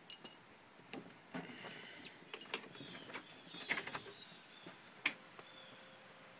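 Faint clicks and rustling of handling inside a van cab, with one sharper click about five seconds in and a faint steady hum after it. The diesel engine is not yet running, with the glow plugs still warming.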